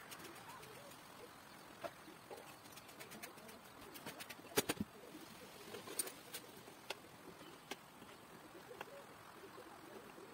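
Scattered clicks and light knocks of small bicycle parts and tools being handled during BMX bike assembly, the loudest a close pair about halfway through. A bird coos faintly in the background.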